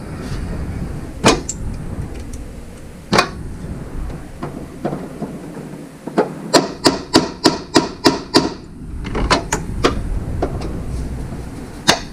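Sharp metallic clicks and knocks of hand tools on metal, a few single ones and, about six and a half seconds in, a quick run of about eight taps.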